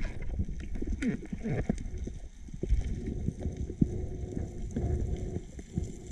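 Irregular underwater knocks and clunks, several a second, from a speargun shaft and line knocking against the rocky seabed, heard through a GoPro's waterproof housing. A faint steady low hum runs under it from about halfway in.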